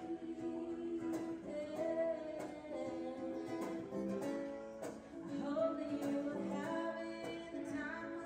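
Background music led by plucked acoustic guitar, held notes over a steady strum.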